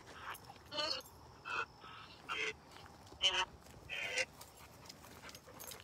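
Spirit box scanning through radio stations: short choppy bursts of broken radio voice and noise from its small speaker, about one a second, stopping a little after four seconds in.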